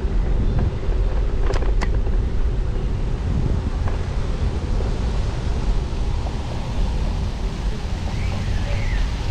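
Wind buffeting a GoPro microphone while riding a bicycle: a steady low rumble of rushing air, with two sharp clicks about a second and a half in.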